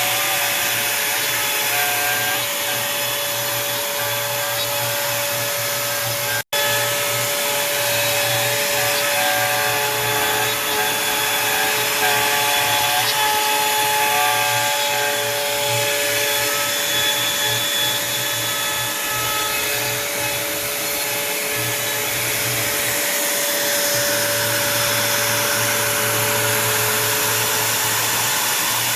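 Onefinity Woodworker CNC router cutting wood. The router spindle runs with a steady whine under the noise of the cut, while the stepper motors sing in short tones that change pitch as the machine moves. The sound cuts out for an instant about six seconds in.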